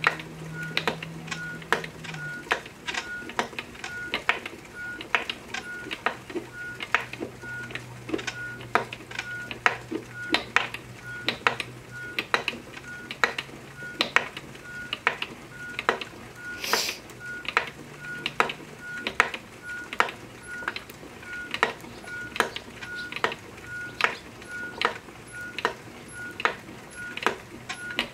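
Wooden treadle spinning wheel turning steadily as wool is spun into yarn, with a regular click a little over twice a second and a short high squeak repeating in step with it.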